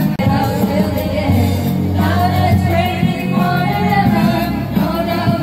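Karaoke machine playing a pop song's backing track with voices singing along to the lyrics, loud and echoing in a small room.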